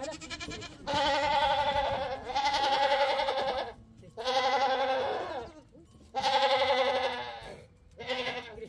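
Livestock bleating: a run of about five long, quavering calls, each lasting about a second and a half, with short gaps between them.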